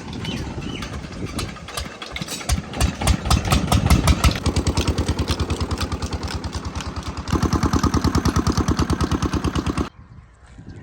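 Diesel engine driving a water pump: uneven heavy thumps at first, then an even, rapid firing beat. It gets louder about seven seconds in and cuts off suddenly shortly before the end.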